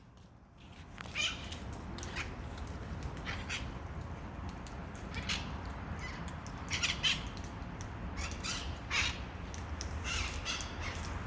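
Parrots giving short, scattered squawks and chattering calls, over a steady low hum.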